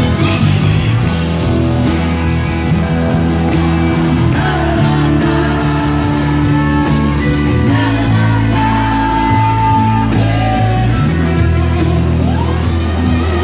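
Live country band playing: electric guitars, lap steel guitar and drums, with several singers singing together into microphones. A high note is held for about a second and a half near the middle.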